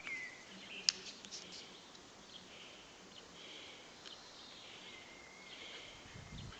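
Faint outdoor ambience: a bird warbling and insects chirping, with one sharp click about a second in.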